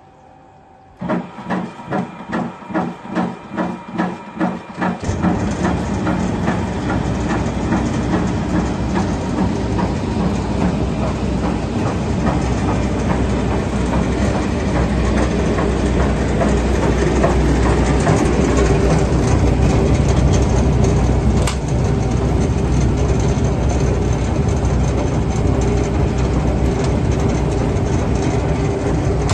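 Grape destemmer (Abbeermaschine) and its must pump starting up. About a second in, a regular pulsing beat of roughly two and a half a second begins; about five seconds in, it gives way to a loud, steady machine running with a low rumble as grapes are fed through.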